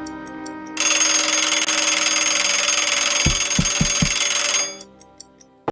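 A loud ringing, rattling sound effect lasting about four seconds, with four low thumps near its end, over soft background music.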